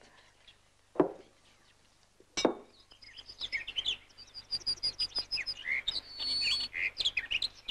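Two sharp knocks about a second apart, then from about three seconds in a busy twittering of birds, many short chirps with one brief held whistle near the end.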